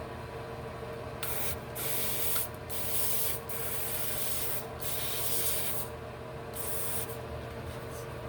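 Adhesive spray for a lace wig hissing in about six short bursts, each half a second to a second long, as the sprayer is pressed again and again. The sprayer is not spraying right.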